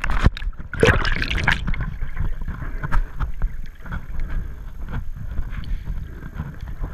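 Water splashing around the camera as it goes under, near the start and again about a second in. Then the muffled low rumble of water heard through an underwater action camera's housing, with scattered faint clicks.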